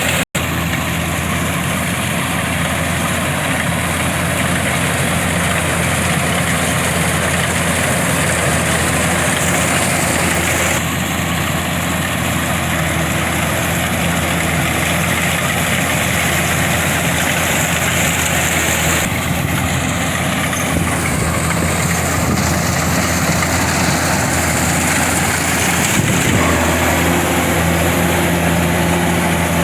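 Kubota DC-105X combine harvester's diesel engine running steadily with a low hum. The sound cuts out for a split second just after the start.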